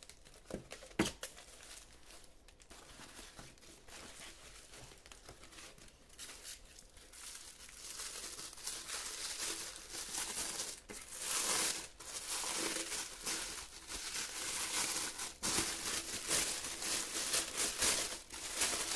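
Thin white packing wrap crinkling and rustling as hands unwrap a spare helmet visor. Soft and sparse at first, then louder and busier from about eight seconds in.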